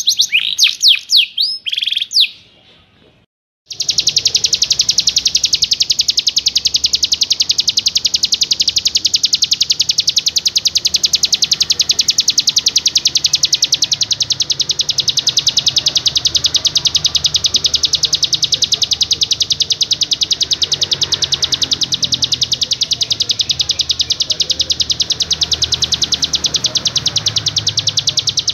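Recorded songbird calls: a few quick high whistles sweeping downward, a brief pause, then a long, very rapid, machine-gun-like trill of sharp high notes repeated evenly without a break, the dense 'tembakan' rattle used to train caged songbirds.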